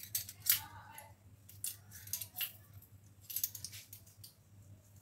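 Hand-held hinged metal lemon squeezer being worked over a glass mug, its metal handles and cup clicking and scraping in a few short spells: about half a second in, around two seconds and around three and a half seconds.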